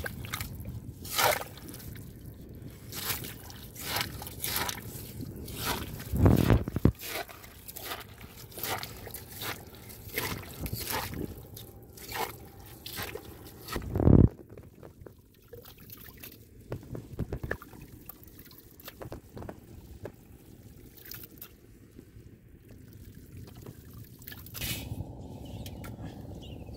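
A digging tool striking and scraping into wet clay soil, with repeated chops about once a second for the first half, the loudest about fourteen seconds in, then fewer. Near the end, muddy water sloshes as a small clay pot scoops it out of the flooded hole.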